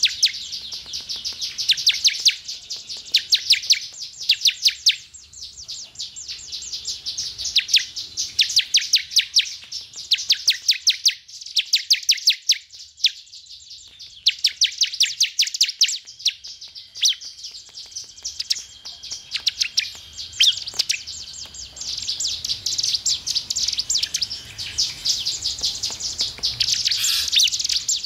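Bar-winged prinia (ciblek) singing: rapid runs of sharp, high chip notes, each run about a second long, repeated with short pauses. The song grows into denser, near-continuous chattering over the last several seconds.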